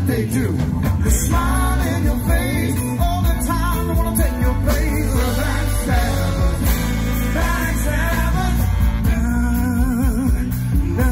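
Live band playing through a PA, with a lead singer over drums, bass, keyboard and a saxophone horn section.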